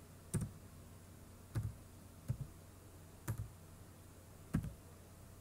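Computer keyboard keystrokes: five separate key presses about a second apart, each a short click, most heard as a quick double click.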